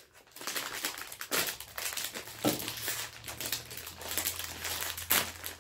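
Crinkly plastic snack bag crackling as it is handled and pulled open, with a few louder crackles among the steady rustle.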